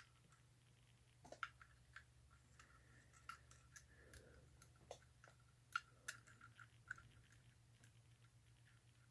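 Quiet workbench sounds: scattered faint clicks and taps of small metal toy-train parts being handled, over a low steady hum.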